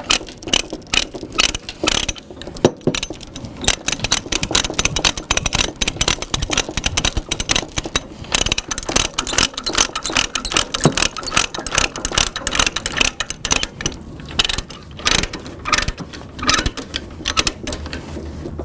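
Ratchet chain binder being cranked to tighten a tie-down chain, its pawl clicking rapidly with the chain links rattling, in runs with a few short pauses.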